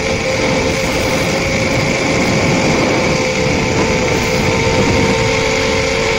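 Small FPV quadcopter's brushless motors and propellers running steadily in cruise flight, heard as a steady, slightly wavering hum and whine under a constant hiss.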